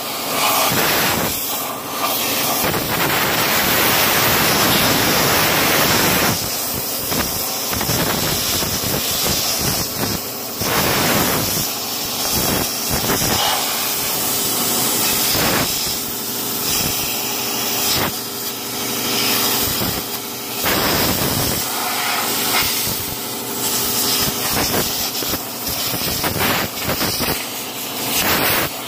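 Compressed-air blow gun with a long bent nozzle hissing in blasts into the rusted-out cab corner, blowing out loose rust and debris. There is one long steady blast a few seconds in, then a run of shorter bursts.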